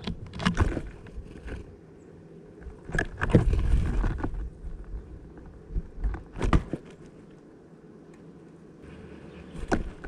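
Bursts of sharp knocks and taps on a five-litre plastic bottle bird feeder as great tits land and move about on it: about half a second in, around three to four seconds, around six and a half seconds, and again near the end as a bird alights. A steady low rumble runs underneath.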